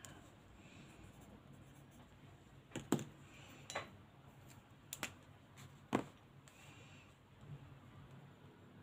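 Alcohol marker being handled and used: four sharp clicks, about a second apart in the middle, and faint scratching of the marker tip on paper.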